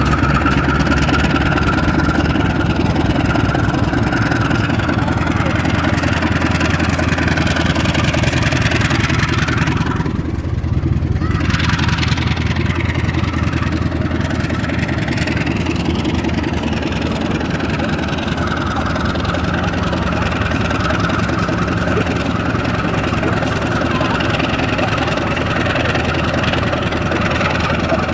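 Diesel locomotive's engine running as it pulls a train out of the station and passes underneath, a loud steady low drone; about ten seconds in the upper part of the sound briefly dulls.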